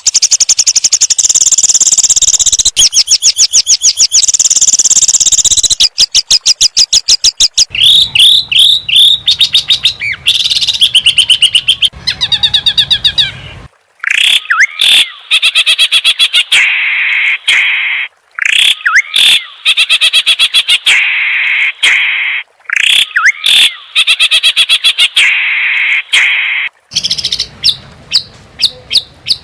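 Songbird song for training cage birds: long trains of rapid-fire, sharp repeated notes, the 'tembakan' shot phrases, high-pitched at first and lower in the second half, with the pattern changing every few seconds and brief breaks between phrases.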